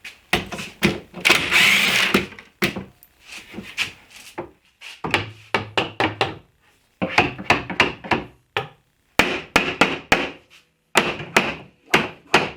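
A power drill runs briefly, then a series of irregular wooden knocks and thunks as a water-damaged cabinet end panel is knocked and worked loose from the cabinet box.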